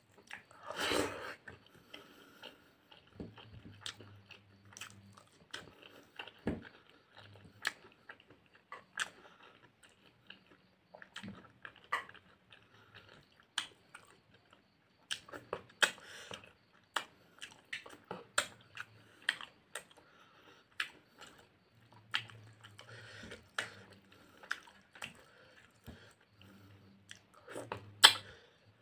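Close-miked chewing and lip-smacking of a rice meal eaten by hand, with many irregular wet mouth clicks. A louder noisy burst comes about a second in, and the sharpest click near the end.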